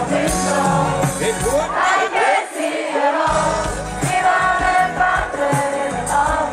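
Live hip-hop concert music over an arena sound system, heard from within the audience, with a sung melody and crowd noise. The bass drops out for about a second partway through, leaving sliding sung notes, then comes back in.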